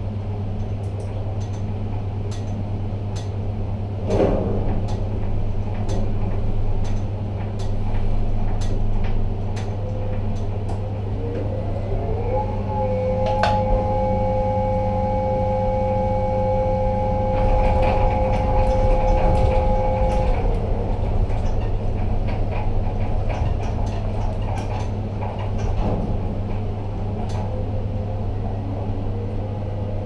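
Steady low hum of a ship-to-shore container gantry crane's drives heard in the operator cab, with scattered clicks and rattles. About twelve seconds in, a two-tone electric drive whine rises in pitch, holds steady for about eight seconds, then stops as the crane travels.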